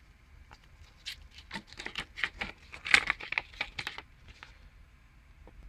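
Folded paper leaflet being unfolded and handled: a quick run of crisp crackles and rustles from about one to four seconds in.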